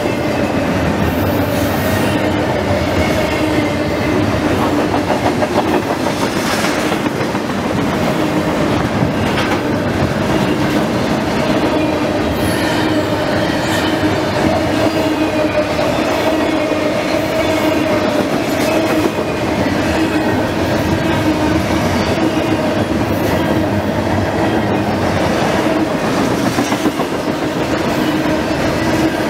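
Double-stack intermodal freight train's well cars rolling past at speed: steady noise of steel wheels on the rails, with a constant hum.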